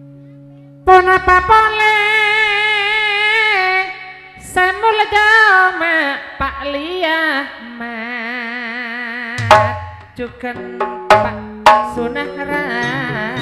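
Madurese gending, traditional gamelan-style music. A held note fades out, then just under a second in a loud lead melody with a wavering vibrato enters over steady low accompanying tones. Several sharp drum strokes come in the second half.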